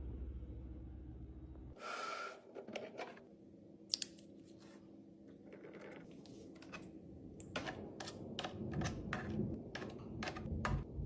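A series of light clicks and taps of small items being handled and set down, sparse at first and coming in quick succession near the end. A low hum stops about two seconds in.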